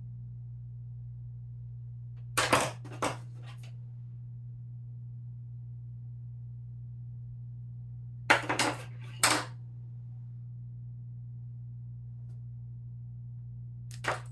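Plastic sunglasses frames clicking and clattering as they are handled and set down on a desk, in three short clusters of knocks: about two and a half seconds in, about eight and a half seconds in, and at the very end. Under it runs a steady low electrical hum.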